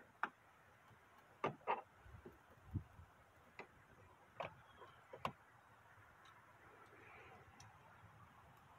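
Light scattered clicks and taps of a thin screwdriver and plastic trim as the inside door handle is worked back into a truck's door panel, about eight in the first five seconds, then only faint background.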